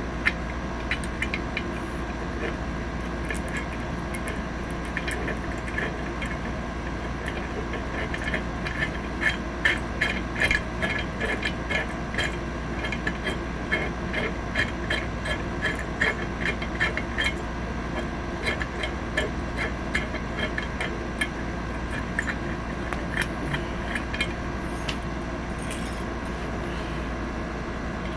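Light, irregular metallic clicking and tapping of small hand tools working on a BB pistol's slide and sights, busiest in the middle of the stretch, over a steady low background hum.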